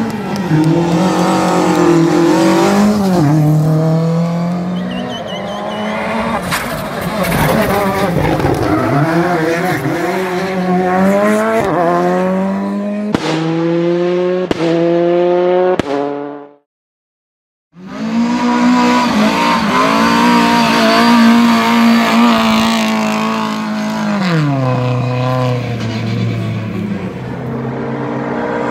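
Lada rally car engines at full throttle, revving and climbing in pitch through several quick upshifts, broken by about a second of silence midway. Near the end the revs drop as the car slows.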